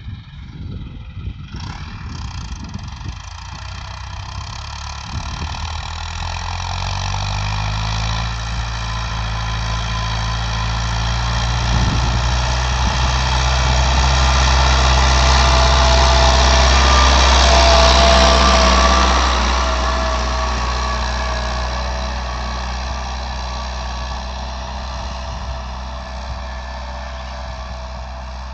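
New Holland TT75 tractor's diesel engine running while ploughing, its engine speed rising over the first several seconds. It grows steadily louder to a peak about two-thirds of the way through, then fades.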